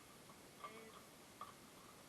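Near silence: faint room tone with a few light clicks.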